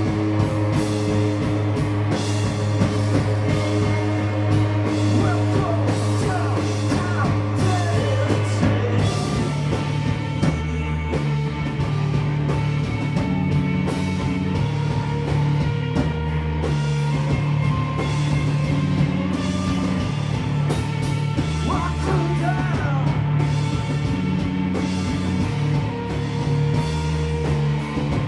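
A noise-rock band playing live, with drum kit, bass and guitar and some singing. A held low bass note gives way to a moving bass line about nine seconds in, under steady drum hits.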